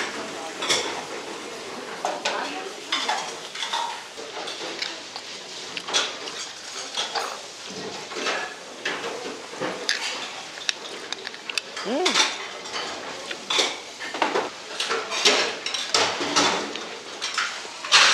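Metal spoon and chopsticks clinking and scraping against a stone bibimbap pot (dolsot) and ceramic side dishes, in irregular clicks throughout.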